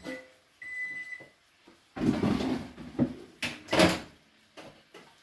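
A single electronic beep, then a kitchen door or cupboard opened with a clatter and knocked shut, the knock the loudest sound.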